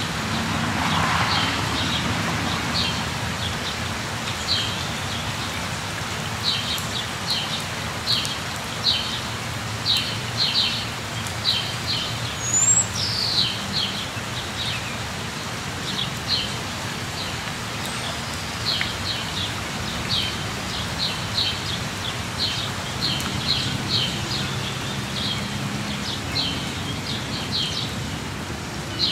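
Steady rain falling, with a small bird chirping repeatedly in short high notes, in flurries, and a low steady hum underneath.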